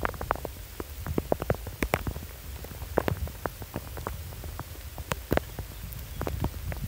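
Rain: scattered drops ticking irregularly, several a second, over a steady low rumble of wind on the microphone.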